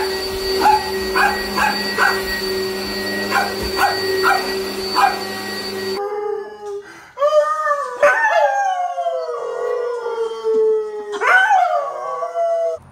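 An upright vacuum cleaner runs with a steady hum and whine while a small dog gives about eight short, sharp barks at it. About six seconds in this cuts to a beagle and a man howling together in long, wavering notes that slide slowly downward.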